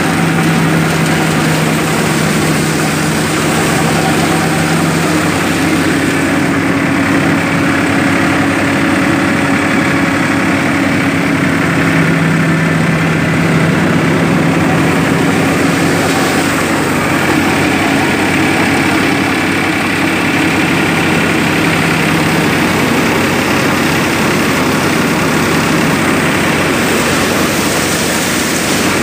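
Farmtrac 45 tractor's diesel engine running steadily under load, driving a mustard thresher, with the thresher's noise over the engine hum; the engine note shifts slightly a few times.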